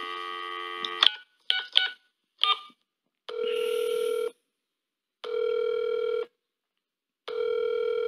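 Telephone call being placed: a dial tone that stops with a click, a few short keypad beeps, then three ringing tones of about a second each with a second's gap between them.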